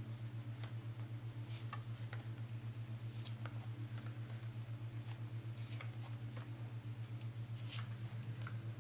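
Light, scattered taps and rustles of tarot cards being handled, over a steady low hum.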